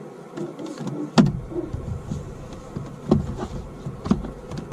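Knocks and rustles of gear being handled inside a truck cab: a sharp click about a second in, then a low rumble with several more knocks.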